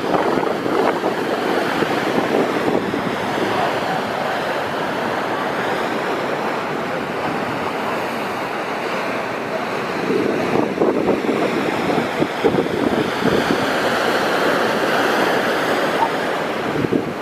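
Ocean shorebreak: waves breaking and washing in a continuous rushing wash, swelling louder about ten seconds in, with wind buffeting the microphone.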